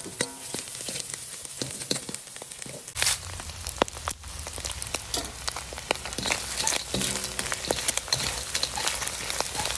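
Small dried fish and garlic sizzling in hot oil in a metal wok, with a metal spatula scraping and clicking against the pan as it stirs. About three seconds in, the sound thickens and grows busier as dried red chillies are tipped into the oil.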